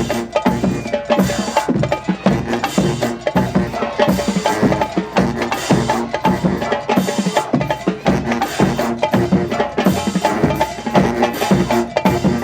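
Marching band drumline playing a fast percussion cadence: dense, quick drum strikes with pitched drum tones.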